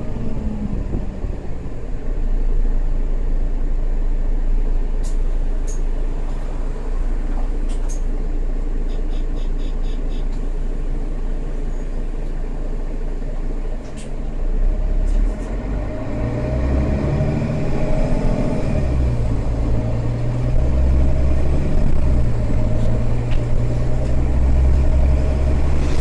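Interior noise of a Mercedes-Benz O530G Citaro articulated city bus: a steady low drone of engine and running gear with a few sharp rattling clicks. From about 16 s in, the engine note grows louder and rises and drops back several times as the bus accelerates through its gears.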